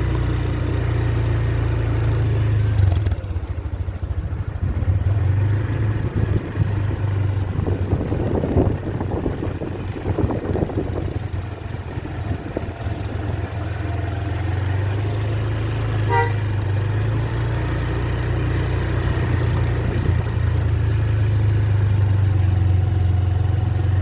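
Large bus engines running by the road: a steady low hum that turns rough and uneven for several seconds in the middle as traffic moves, then settles again. One short beep about two-thirds of the way through.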